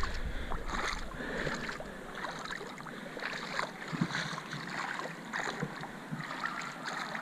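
River water sloshing and splashing in small, irregular splashes around a person wading in mid-river.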